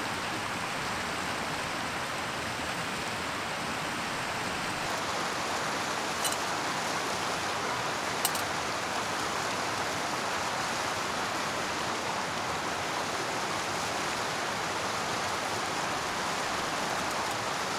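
Mountain stream rushing steadily, with two light, sharp clicks about six and eight seconds in.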